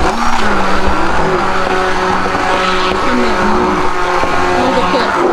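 Handheld stick blender running in a glass bowl of pancake batter, blending out the lumps. Its steady motor whine dips in pitch and recovers a few times as the blade head is lifted and lowered through the batter.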